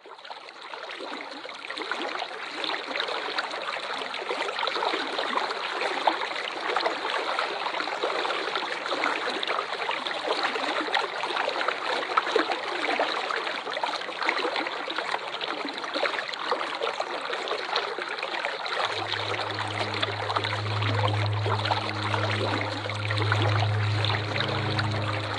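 Waterfall water rushing and splashing as a steady, even hiss, fading in from silence at the start. About three-quarters of the way through, a low steady hum comes in beneath it.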